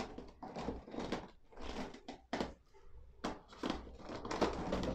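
Scattered small plastic knocks and clicks, about half a dozen, with faint rubbing between them, as a stand bracket is pushed into its snap-lock slot on the back of a plastic monitor housing.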